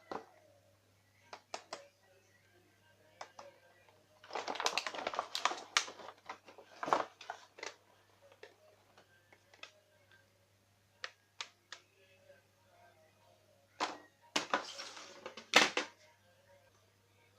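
Hands unpacking and handling a shotgun and its packaging: two stretches of rustling with sharp clicks and knocks in between. A faint steady electrical hum runs underneath.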